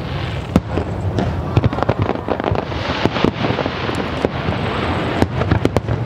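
Aerial fireworks going off: many sharp bangs and pops in quick succession over a continuous crackle.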